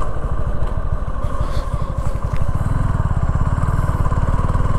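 Motorcycle engine running steadily while riding along the road, a fast, even beat of exhaust pulses.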